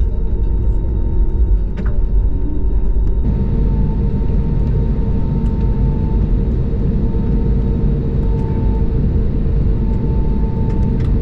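Steady low rumble of an Airbus A321neo's cabin with the engines at taxi power, heard from a window seat. About three seconds in it becomes hissier, and a faint wavering whine comes and goes.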